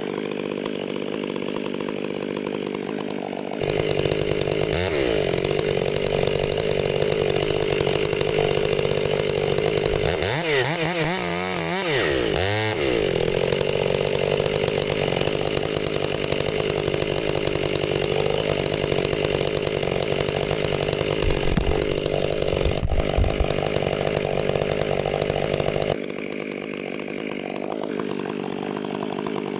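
Two-stroke chainsaw idling, then opened to full throttle and cutting through wood for about twenty seconds, its pitch dipping a few times under load, before dropping back to idle near the end.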